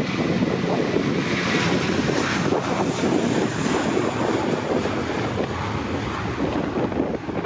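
Airbus A320 jet engines running as the airliner passes: a loud, steady rush of engine noise, a little brighter about two seconds in, with gusty wind on the microphone.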